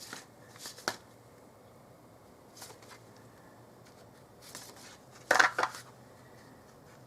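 Tarot cards being shuffled and handled: a few short, soft bursts of card noise, with a louder, longer flurry about five seconds in.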